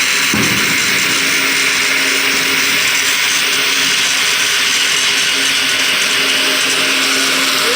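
Steady, loud hissing machine noise with a faint low hum under it, unchanging throughout.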